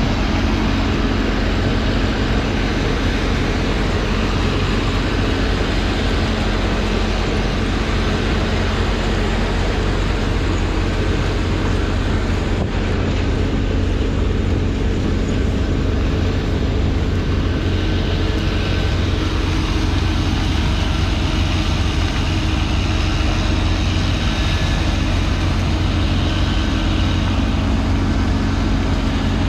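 The diesel engines of a 225-horsepower New Holland T7 tractor towing a sugarcane trailer and of a sugarcane harvester loading cane into it, running together steadily under load.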